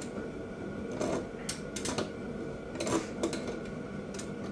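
Threading die being turned back off the flywheel-end threads of a Predator 212 crankshaft with channel-lock pliers: a handful of separate metallic clicks and scrapes.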